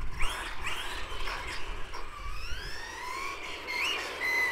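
XLF F11A 1/10 RC car's electric motor whining, its pitch sliding up and down as the car speeds up and slows. There is one long rising whine through the middle.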